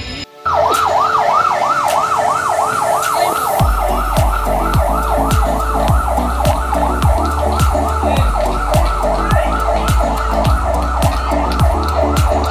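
A yelp siren sweeping rapidly up and down in pitch, about four cycles a second. About three and a half seconds in, a deep, steady drumbeat joins it at about two beats a second.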